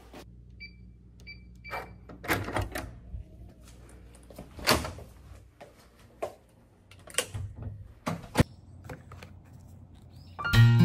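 Footsteps and knocks of a person walking indoors, with three short electronic beeps about half a second apart near the start and a sharp click about eight seconds in. A low steady hum underneath fades out midway.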